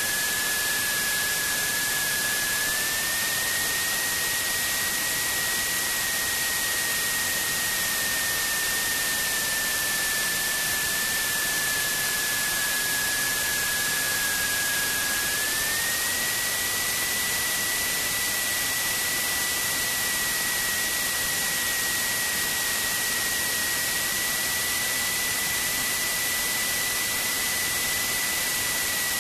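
Steady hiss of cabin noise inside a Symphony light aircraft on final approach. A thin steady whine runs through it and steps up slightly in pitch about three seconds in and again about halfway through.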